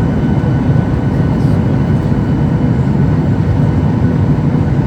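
Boeing 737-800 engines and airflow heard from inside the passenger cabin: a loud, steady rumble, heaviest in the bass, with faint steady tones above it.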